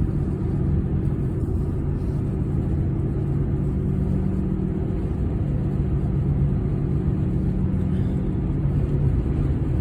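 Truck driving on a snowy road, heard from inside the cab: a steady low drone of engine and road noise with a held hum.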